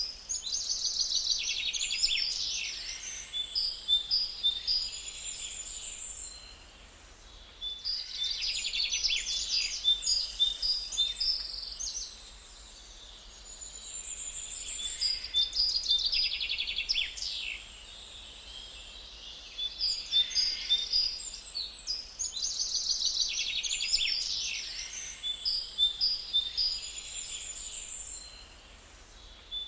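Small birds chirping and trilling in quick, high bursts. The calls come in phrases of a few seconds with short lulls between them, the pattern repeating about every six seconds.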